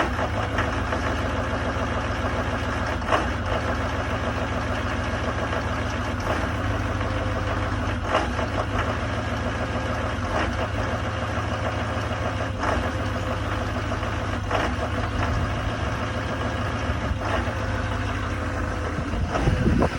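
Duramax diesel truck engine idling cold at about 15 below zero, running rough, with a short sharp knock every couple of seconds at uneven spacing. The owner says the truck has idled roughly like this since it was new.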